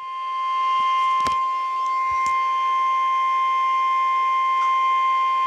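Steady single-pitch alarm tone of an EAS weekly test broadcast, the NOAA Weather Radio 1050 Hz warning tone, fading in over the first second and then holding level. A couple of faint static clicks come through about a second and two seconds in.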